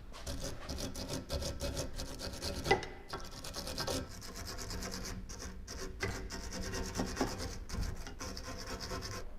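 Rapid rasping clicks of a hand ratchet wrench working, loosening the front stabilizer link nuts.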